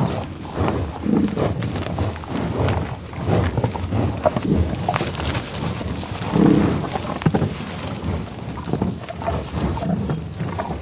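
American bison grazing: repeated short crunches of grass being torn and chewed, with low grunts, the loudest about six and a half seconds in.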